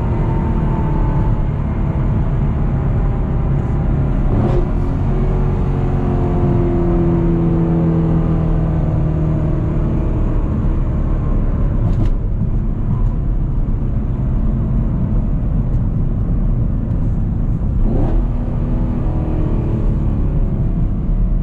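Chevrolet Camaro SS 1LE's 6.2-litre LT1 V8 running under way, its engine note drifting gently up and down, with heavy low road and drivetrain noise. A few brief knocks come through about four, twelve and eighteen seconds in.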